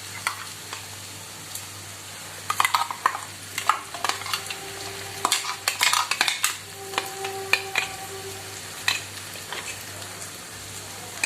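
A spoon scraping, knocking and stirring in a pan as masala paste is added to onions and spices frying in sesame oil, over a steady sizzle. The scrapes and knocks come in irregular clusters, busiest in the middle.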